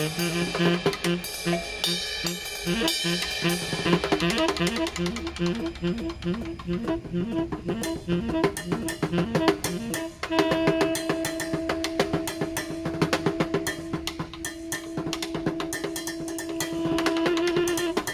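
Snare drum and saxophone playing together: the snare keeps up a busy beat of rim and head strokes while a short low figure repeats, and about ten seconds in a long held note begins and carries on.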